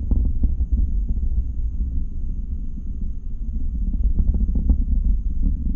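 Low, uneven rumble of wind buffeting the microphone, with a few faint clicks.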